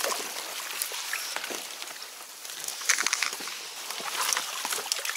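Reed stalks rustling and crackling, with faint water sounds, as a dog pushes through the reeds toward an inflatable boat. A sharper knock about three seconds in.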